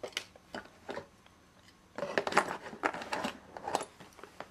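Small odds and ends clicking and rattling as a box of junk-drawer items is rummaged through: a few separate clicks, then a busier run of clatter about two seconds in.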